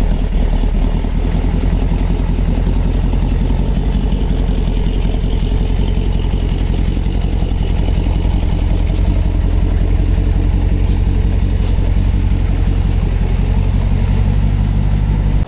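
350 V8 in a 1929 Ford Model A pickup, breathing through polished stainless custom exhaust with Hush Power mufflers, running steadily at low speed just after a cold start.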